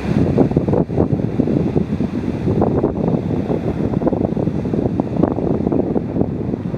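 Wind buffeting the microphone: a loud, uneven rumbling gust noise.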